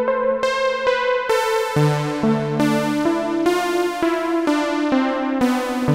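Xfer Serum software synth patch, dressed up to sound like an analog synth, played as a keyboard phrase: chords with a bass line joining about two seconds in, new notes about twice a second. Some notes sound brighter than others because key velocity opens the low-pass filter cutoff.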